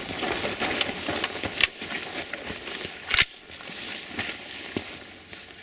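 Two gunshots about a second and a half apart, over rustling and handling noise.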